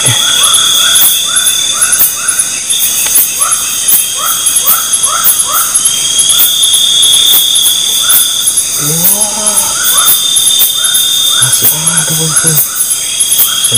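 Loud night chorus of crickets and other insects: a constant high, rapidly pulsing trill with a held shrill tone over it, and a short falling chirp repeating about twice a second. About nine seconds in, and again near the end, come brief low voice-like sounds.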